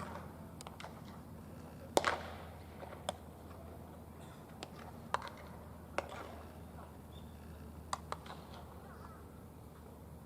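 Sharp pop of a thrown baseball smacking into a catcher's mitt during warm-up pitches, about two seconds in. Fainter knocks follow every second or two over a low steady hum, with faint distant voices.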